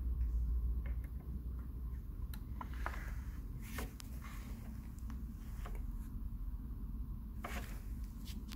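Scattered light clicks and two brief rustles of a gloved hand handling the pallet truck's plastic tiller head, over a low steady hum.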